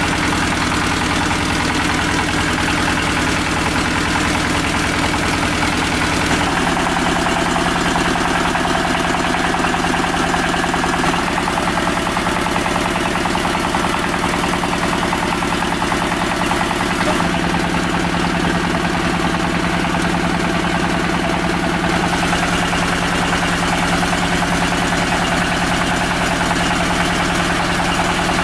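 A small engine running steadily with a fast, even beat. Its pitch and tone change abruptly several times.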